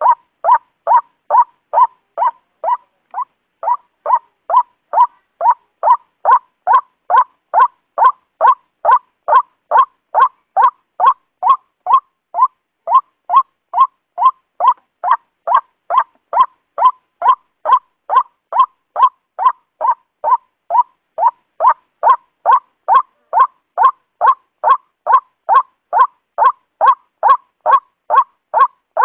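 Waterhen's call repeated as a steady loop: short, loud notes centred in the mid range, evenly spaced at about two a second.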